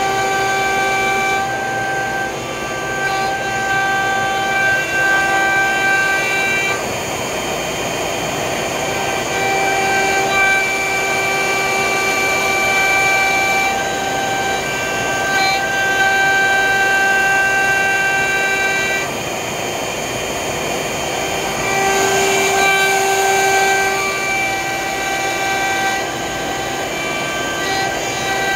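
CNC router machining grooves in a wood board: a steady high whine from the router spindle with cutting and dust-collection noise underneath. The whine swells and fades every few seconds as the cut changes.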